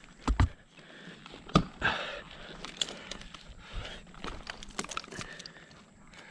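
Climbing spurs and gear knocking and scuffing against a tree trunk as a climber works up a spar: a few sharp knocks, two close together just after the start and a loud one about a second and a half in, with smaller knocks and scrapes between.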